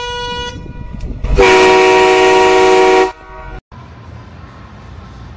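A loud air horn blast lasting nearly two seconds, one steady pitch, starting about a second in and cutting off sharply. A quieter held tone ends just before it.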